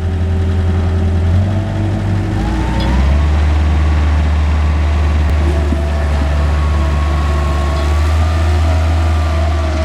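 Bobcat 743 skid steer engine running. About two to three seconds in, its note changes and a higher whine rises, and then it runs steadily.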